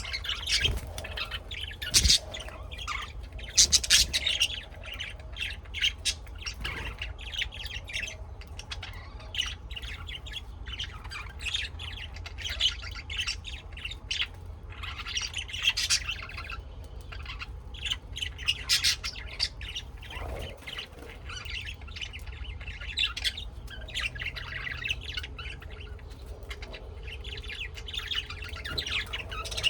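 Several birds chirping and squawking in quick, overlapping calls, over a steady low rumble.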